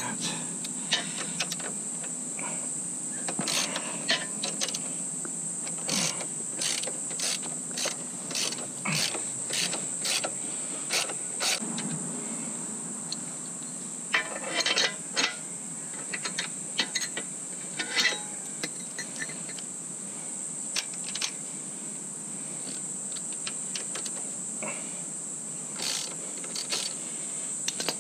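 Hand tools working on motorcycle bolts: a ratchet clicking and metal tools clinking in irregular bursts, some in quick runs of strokes.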